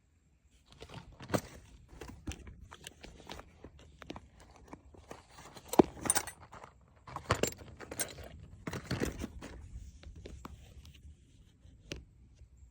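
Irregular clinks, clicks and knocks of hand tools and small metal parts being handled during engine work, with a few sharper strikes.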